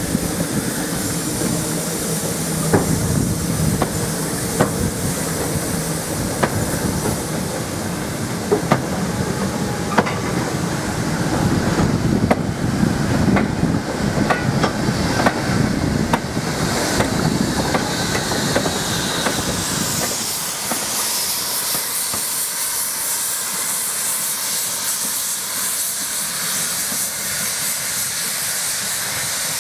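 Short goods train rolling slowly behind a steam tank locomotive: a low rumble with many irregular clanks and knocks from the wagons. After about 20 seconds the rumble falls away and a steady hiss of steam takes over as a saddle tank engine draws near.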